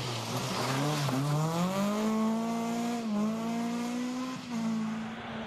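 Seat Ibiza rally car's engine pulling hard on gravel over a hiss of tyres on loose stones. The engine note climbs steadily for about two seconds, dips briefly at a gear change about three seconds in, then holds high.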